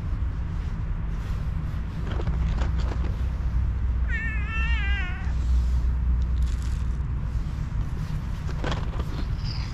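A stray cat meowing once, a drawn-out call that wavers in pitch, about four seconds in, as the cats wait to be fed. A steady low rumble runs underneath, with a few faint clicks.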